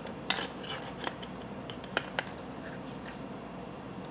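A few sharp plastic clicks and knocks as a Ring Spotlight Cam and its plastic mounting plate are worked together by hand, the plate not sliding down into place. The clearest click comes about a third of a second in, with two more close together about two seconds in.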